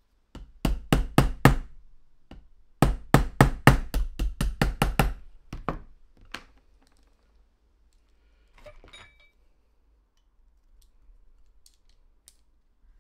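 Small hammer tapping a pin punch to drive a small pin out of an Air Arms CD trigger block: a quick run of about five taps, then after a short pause about ten more at roughly four a second, followed by a few spaced taps.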